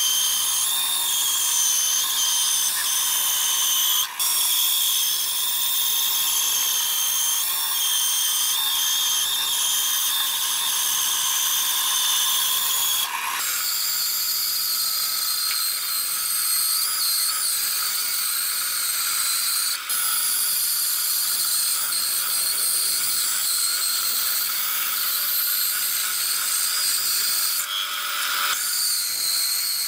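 Benchtop band saw running, its blade ripping a wooden board fed along the fence: a steady, high-pitched cutting noise, with a few momentary dips.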